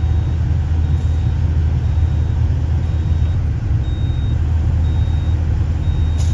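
Sany SY135C excavator's diesel engine running steadily, heard from inside the cab. Faint short high beeps come at intervals: the quick coupler's warning alarm, sounding while the coupler is activated and unlocked.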